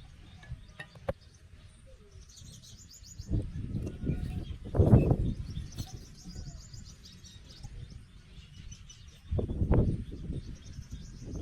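Small birds chirping in quick repeated trills in the background. Two bouts of low rumbling noise rise over them, the louder one about three to six seconds in and another near the end, with a brief click about a second in.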